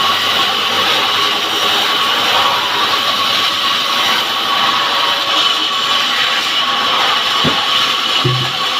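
Chainsaw running at high speed with a steady whine, cutting wood.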